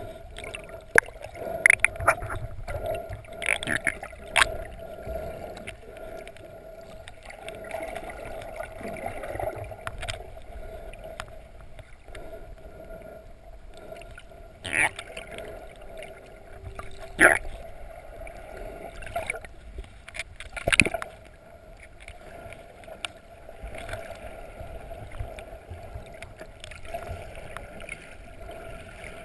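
Muffled underwater sound picked up by a GoPro in its waterproof housing: a steady hum and low water rumble, broken by several sharp knocks and clicks, the loudest about 15, 17 and 21 seconds in.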